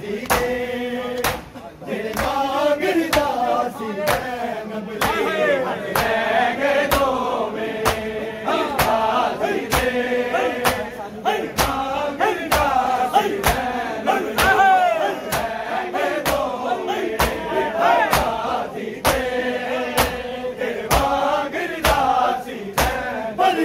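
Crowd of men beating their chests in unison (matam), sharp hand-on-chest slaps at an even beat of about three every two seconds, under a noha chanted by male voices.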